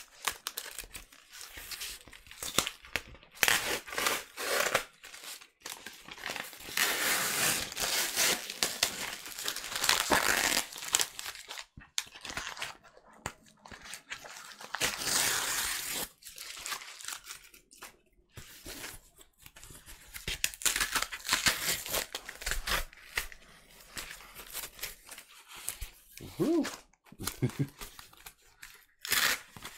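Cardboard vinyl-record mailer being torn and pulled open by hand: irregular bursts of ripping and crinkling cardboard and paper, with short pauses between them.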